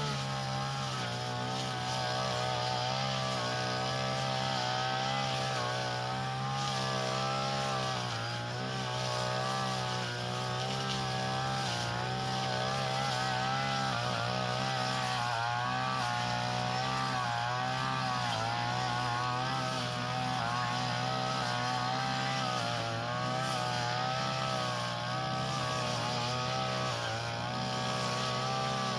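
Small petrol engine of a Tanica grass-cutting machine running fast and steadily while cutting grass. Its pitch wavers slightly up and down.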